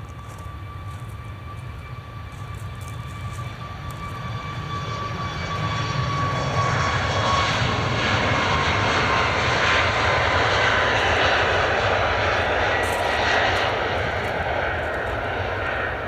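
Boeing 737 jet engines at takeoff power as the airliner departs, swelling over a few seconds to a loud, steady roar that eases slightly near the end. A high whine from the engines slides a little lower in pitch as the aircraft passes.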